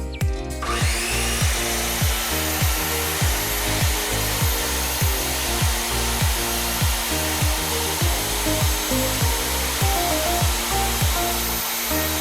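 An electric power saw's motor spins up about a second in and then runs steadily, with a high whine over a dense noise. Background music with a steady beat plays along with it.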